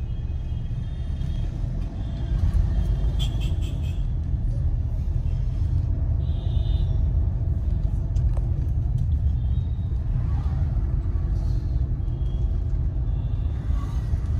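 Car cabin rumble while driving slowly in street traffic: a steady low drone of engine and road noise heard from inside the car. A few faint short high tones from outside traffic come about 3 and 7 seconds in.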